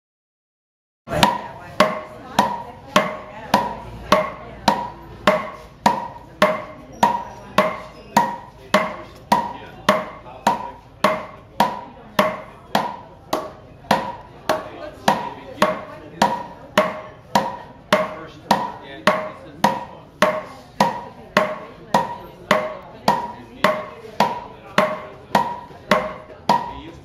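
A heavy hammer beating a wrapped packet of gold leaf on a block, in steady blows about three every two seconds, each with a short ring. This is the hand-pounding that thins gold into leaf.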